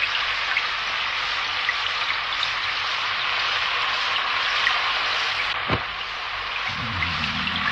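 Steady heavy rain falling, an even hiss that runs on without a break.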